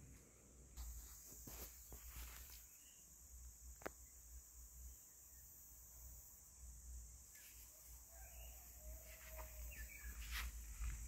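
Faint outdoor ambience: a steady high-pitched buzz of crickets or other insects, over a low rumble, with a few soft clicks.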